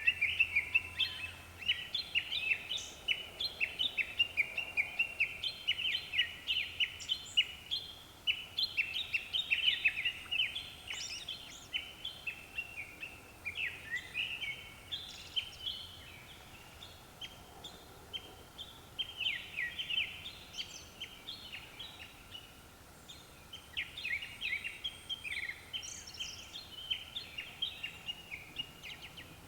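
Japanese thrush singing: phrases of quick, varied notes, one after another, with short pauses between them.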